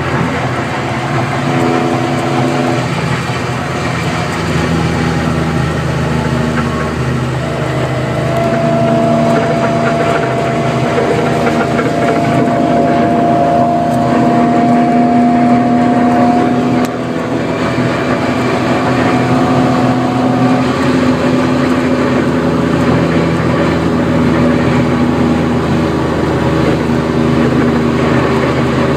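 BMW E46 M3 running, a steady engine drone that shifts a little in pitch, with the rear trunk rattle the car is known to have.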